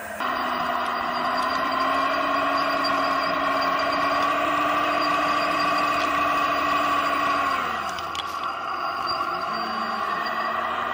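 Drive of an RC O&K L25 wheel loader model running steadily under load as the loaded bucket is pushed into a pile of soil. About seven and a half seconds in, the pitch falls and the sound drops to a quieter running note.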